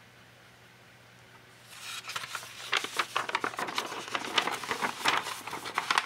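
Sketchbook paper pages being handled and turned: rustling and crinkling with many quick crackles, starting about two seconds in after a quiet start.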